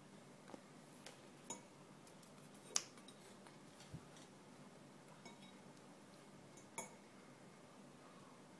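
Metal fork clinking against a ceramic plate while eating: a handful of short sharp clinks, the loudest about three seconds in.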